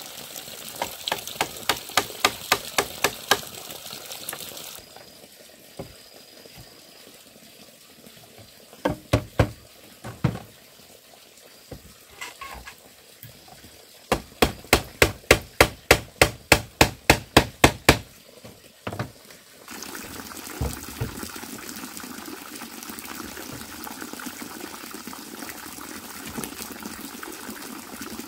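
Rapid, evenly spaced chopping strikes on bamboo, about four a second, in two runs with a few scattered knocks between them. A steady watery hiss runs under the first run and returns after the second.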